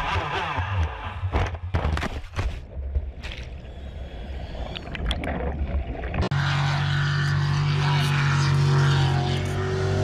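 Racing powerboat heard from on board: engine and rushing spray, broken by several hard thumps and dropouts as the boat crashes and tumbles, then muffled churning noise. About six seconds in it cuts suddenly to the steady, even drone of a distant racing boat's engine.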